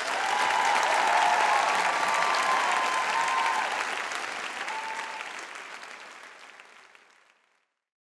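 Audience applauding, rising at once and then fading out over the last few seconds.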